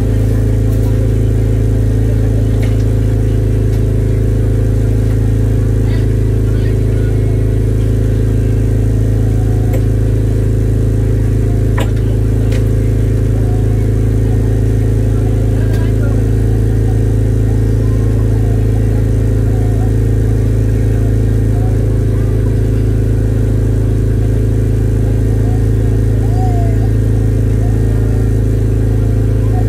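Fishing boat's engine running steadily under way, a loud, even low drone that does not change in pitch or level. Faint voices of people talking come through under it.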